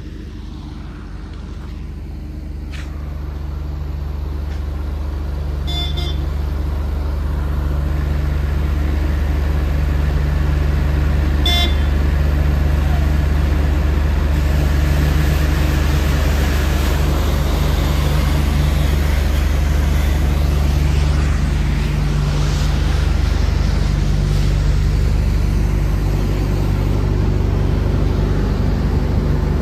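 Lorry engine running with a steady low drone that grows louder over the first several seconds and then holds. Two short beeps sound, about six and about twelve seconds in.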